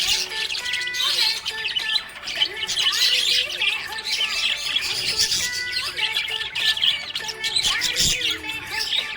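Budgerigars chattering and warbling, a dense, continuous stream of rapid high chirps, over steady background music.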